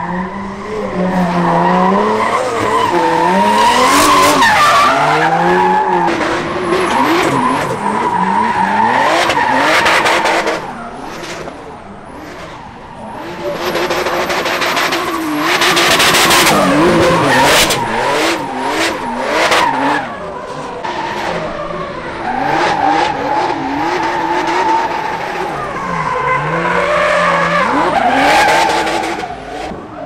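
Drift cars' engines revving hard up and down while their tyres squeal and skid through slides. The sound comes in three loud runs with quieter gaps between.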